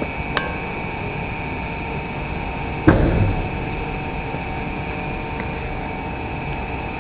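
Ferrari F599 Fiorano's V12 idling steadily, a constant hum with a few fixed tones. One single loud thump about three seconds in.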